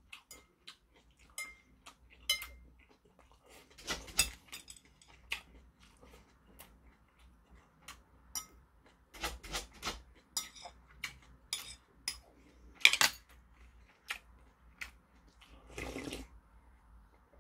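Metal chopsticks and spoon clicking and scraping against a porcelain bowl during a meal, in scattered sharp clinks, the loudest a little before the end. Near the end comes a longer noisy sip as a ceramic bowl is drunk from.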